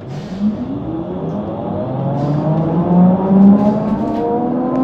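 HESS Swisstrolley 4 trolleybus pulling away, its electric traction drive whining in several tones that climb steadily in pitch and loudness as the bus gains speed, then level off near the end.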